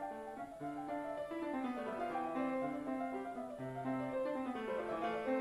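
Background classical music played on solo piano, a steady flow of notes with no speech.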